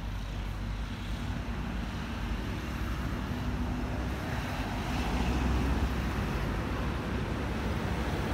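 Steady low rumble and hiss of outdoor background noise, a little louder in the second half, with no distinct events.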